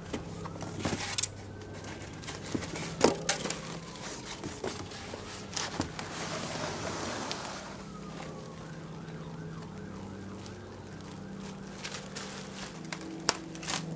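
Large cardboard box being opened and pulled off: flaps and sides rustling, scraping and knocking in sharp taps, with a longer rustle about six seconds in. A faint siren wails in the distance underneath.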